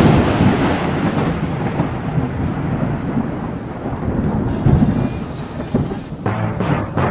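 Thunderclap that breaks suddenly and rumbles on through heavy rain.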